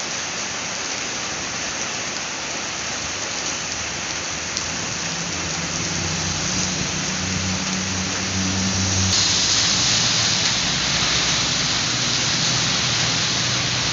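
Steady heavy rain falling, an even hiss of drops on surfaces. A low rumble rises underneath about five seconds in, and the rain hiss suddenly gets louder and brighter about nine seconds in.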